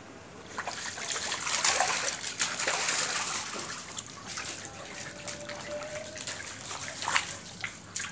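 Water splashing and trickling on a wet tiled floor, with scattered light clicks and spatters, loudest in the first half.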